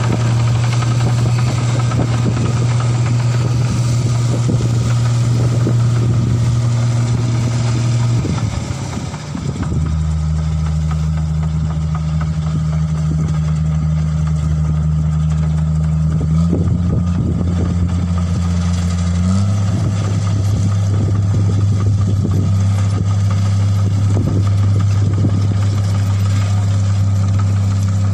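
Rice combine harvester's diesel engine running steadily as the half-track machine drives along a dirt road. The level dips briefly about nine seconds in, and the engine note steps up slightly twice later on.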